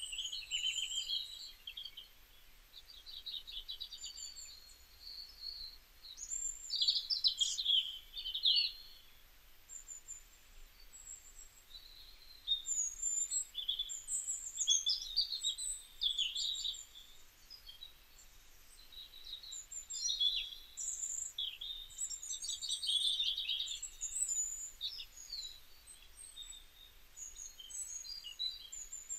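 Small songbirds chirping and trilling in quick, high-pitched phrases that come and go every few seconds.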